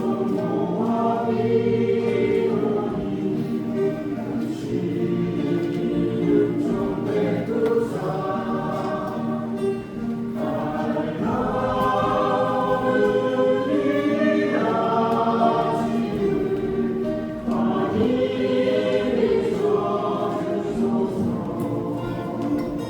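A choir singing a Korean gospel hymn in sustained phrases, with guitar accompaniment.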